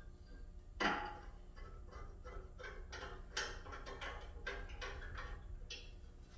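Phillips screwdriver turning small screws into a metal mailbox mounting bracket: a run of irregular metallic clicks and scrapes, with a sharper knock about a second in.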